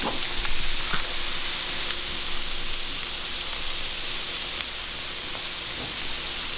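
Striped bass fillets sizzling steadily on a hot flat-top griddle as they blacken, with a few faint ticks in the first second.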